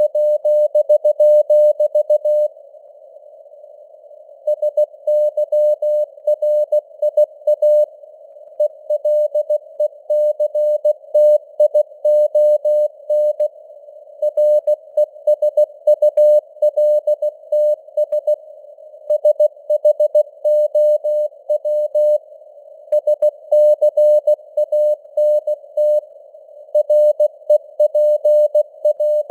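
Morse code (CW) at 16 words per minute: a tone of about 600 Hz keyed on and off in dots and dashes, over narrow-band hiss of simulated radio noise. The keying pauses for about two seconds near the start.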